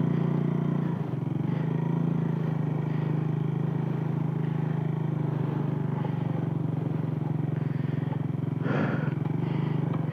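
Motorcycle engine running at a steady, low pitch while riding, its carburettor not working normally by the rider's account. A brief clatter stands out about nine seconds in.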